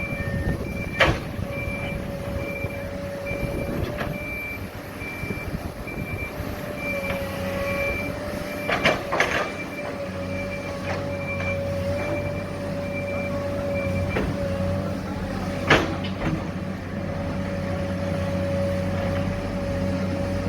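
Heavy machinery engines running steadily while a reversing alarm beeps at an even rate and stops about two-thirds of the way through. Several sharp metallic clanks cut in, the loudest near the end.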